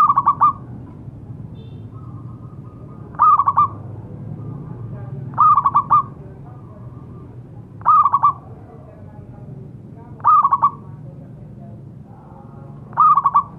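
Zebra dove (perkutut) calling: six short, rapidly stuttering coos, each about half a second long, repeated about every two and a half seconds.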